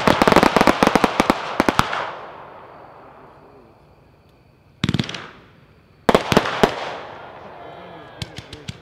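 Epic Fireworks 'Uncle Sam's Salute' 168-shot consumer fireworks cake firing. A dense volley of pops and crackles in the first two seconds fades out, and after a lull a single bang comes about five seconds in. Another cluster of bangs and crackles starts about a second later and dies away, with scattered pops near the end.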